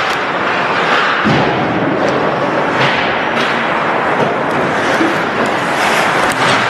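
Ice hockey play in a rink: a steady wash of skates on ice and arena noise, with several short thuds and clacks of the puck, sticks and players against the boards.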